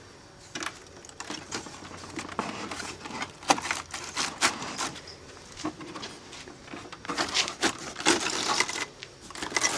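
Irregular clicks, knocks and rattles of a window air conditioner's casing being handled and taken apart to open it up.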